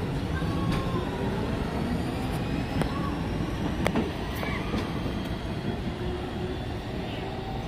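St. Louis Car Company R42 subway train accelerating away from the platform: steady rumble of wheels on the rails with a faint rising whine from the traction motors and a few sharp clicks.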